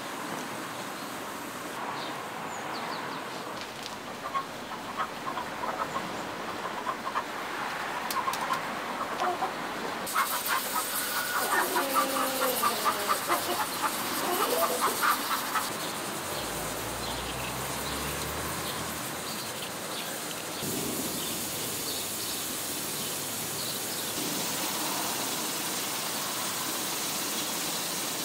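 Chickens clucking and calling, with a quick run of clucks in the middle that is the loudest part.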